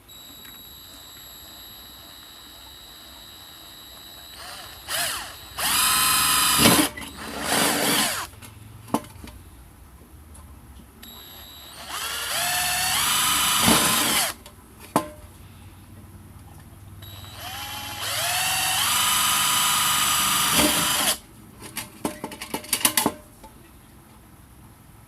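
Power drill run in three bursts of a few seconds each, its motor whine rising as it spins up, with small clicks and knocks between the bursts.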